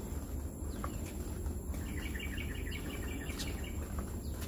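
Outdoor ambience with birds calling: a rapid run of repeated chirps about two seconds in that lasts over a second, and a few short falling notes, over a steady low rumble.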